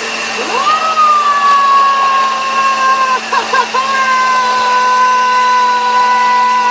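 Electric blender running as a smoothie is blended: a steady motor whine that rises in pitch as it speeds up near the start, falters briefly about three seconds in as the blades catch on the contents, then runs on evenly.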